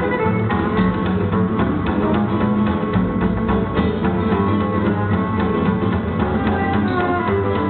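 Live Roma swing music: a violin played over a steady rhythmic accompaniment with strummed guitar.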